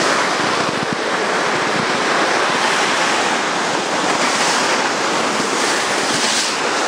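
Sled sliding down a snowy slope: a steady rushing hiss of snow under the sled mixed with wind buffeting the microphone.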